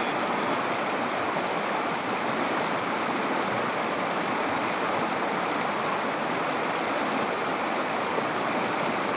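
Shallow river flowing steadily over rocks, an even rushing of water.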